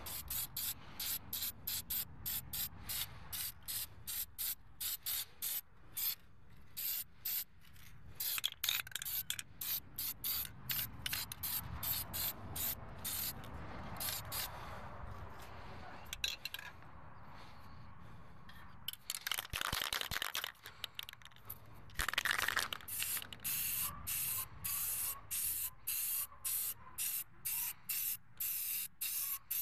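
Spray paint hissing from an aerosol can in many short bursts, about two a second, laying a textured coat on a truck wheel. Around the middle the spraying gives way to a quieter, steadier hiss, followed by a couple of longer sprays.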